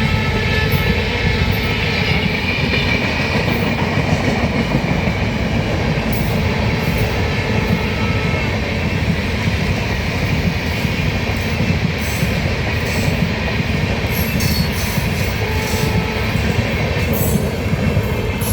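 Indian Railways superfast express train running past at speed: a steady loud rumble with wheels clicking over the rail joints.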